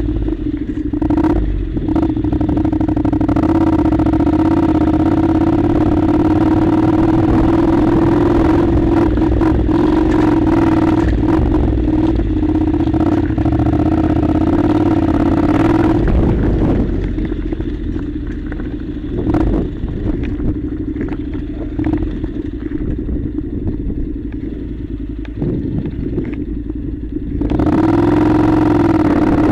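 Honda NC700's parallel-twin engine running steadily as the motorcycle rides a gravel dirt track, with clattering from the rough surface. About halfway through the engine gets quieter for some ten seconds, then picks up again near the end.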